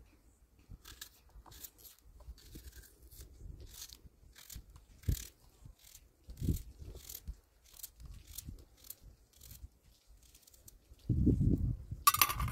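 Small knife cutting boiled eggs by hand over a pan: a string of short, soft slicing scrapes and clicks, about two a second. Near the end comes a louder knock and a sharp clatter.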